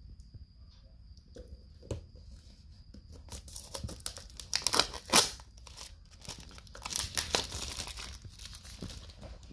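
Clear plastic shrink wrap being torn off a small cardboard box and crumpled in the hand. It crackles in dense bursts from about three seconds in, loudest near the middle, with a single click shortly before.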